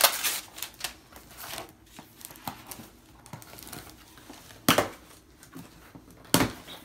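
A cardboard box being handled and torn open by hand: scattered crinkling and rustling of cardboard, then two loud short rips about a second and a half apart near the end.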